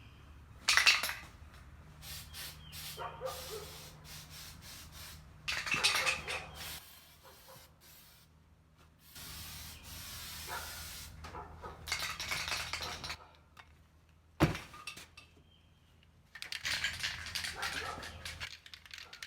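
Aerosol can of rubberized undercoating spraying in several separate bursts of hiss, a second or a few seconds each, with a few sharp clicks between them.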